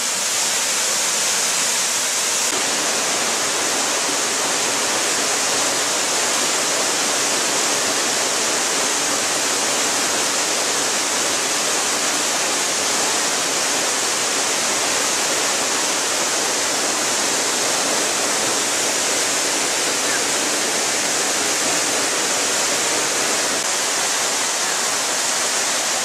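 Waterfall rushing steadily: an even, unbroken noise of falling water that holds at the same level throughout.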